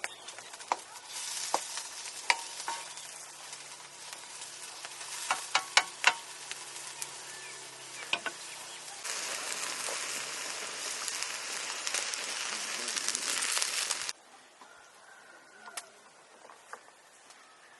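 Food sizzling as it fries, a steady hiss with scattered sharp pops and crackles. It grows louder about nine seconds in and cuts off abruptly about fourteen seconds in, leaving only faint ticks.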